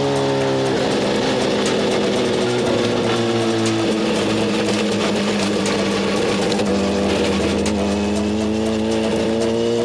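Motorcycle engine running under steady load with wind rush, its pitch dipping slightly at first, holding, then rising gently near the end.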